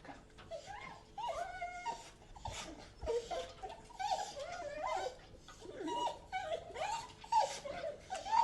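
Dog crying: a run of short, high-pitched whines and whimpers that rise and fall in pitch, one after another with brief gaps.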